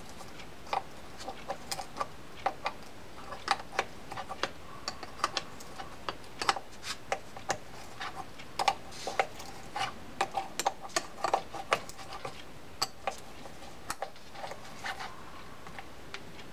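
Irregular small metal clicks and taps of a wrench working the handle nut on a Shimano Corsair 400 baitcasting reel, with handling of the reel's small parts; some clicks ring briefly.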